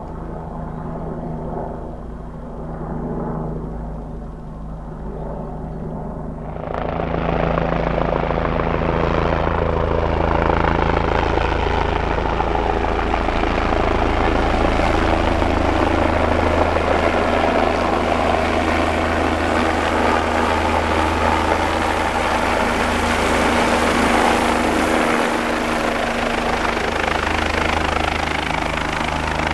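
Bell 427 twin-turboshaft helicopter coming in close on its landing approach and then hovering, with steady rotor and engine noise and a thin high turbine whine. It gets abruptly much louder about seven seconds in and stays loud.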